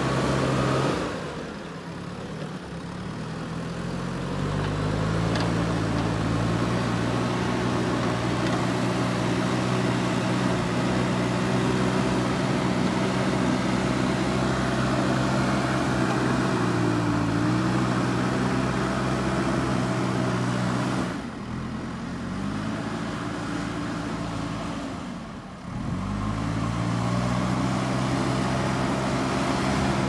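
JCB 3DX backhoe loader's diesel engine running steadily as the machine grades soil with its front bucket. The revs drop briefly about a second in and twice near the end, rising back each time.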